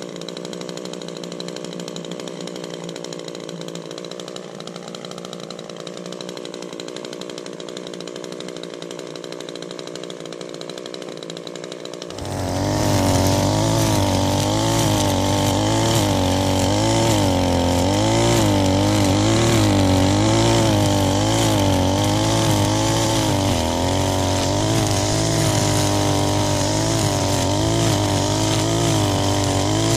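Gas string trimmer running, quieter for the first twelve seconds, then much louder from about twelve seconds in, its engine pitch wavering up and down as the line cuts through ferns and brush.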